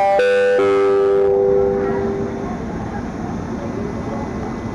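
Electronic station public-address chime: several bell-like notes stepping down in pitch and overlapping, the lowest held before fading out about two seconds in. A steady background noise runs underneath and continues after it.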